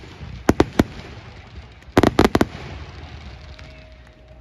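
Fireworks bursting overhead with sharp bangs: three in quick succession about half a second in, then a rapid cluster of about five around two seconds in, followed by a quieter stretch.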